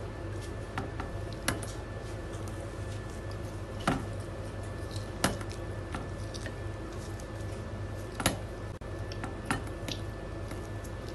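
Close-up eating sounds: fried pakoras being handled and chewed, with about five sharp clicks and taps at intervals, over a steady low hum.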